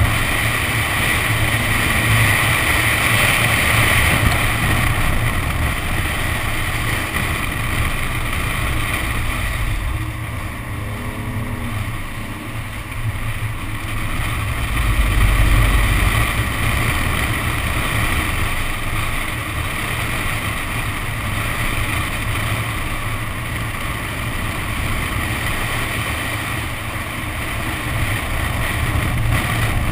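Nissan 370Z driven sideways through standing water: wind buffeting the outside-mounted camera mixes with the hiss of tyre spray and the car's engine running underneath, with a louder swell about halfway through.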